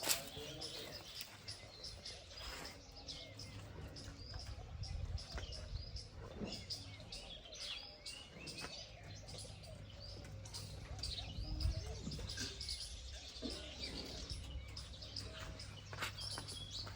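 Small birds chirping, many short scattered calls, over a low steady hum.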